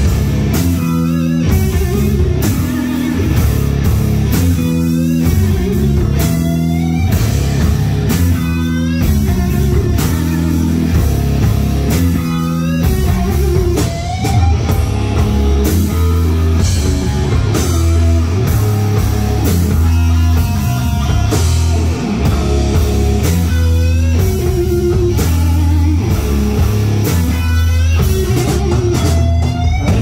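Live rock band playing heavy rock: electric guitars, bass guitar and drum kit, loud and continuous.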